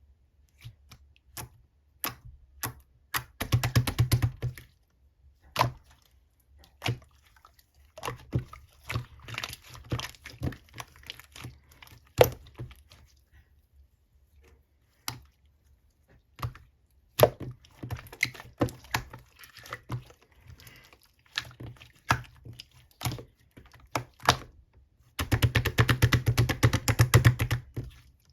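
White slime being squished and pressed by hand, making sharp clicks and pops, scattered singly and in fast crackling runs about four seconds in and again near the end.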